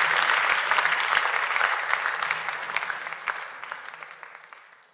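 Applause, many hands clapping, fading out steadily over the second half.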